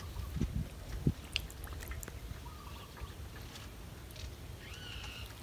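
Quiet outdoor ambience with a steady low rumble, a few soft thumps in the first second or so, and a short high chirp near the end.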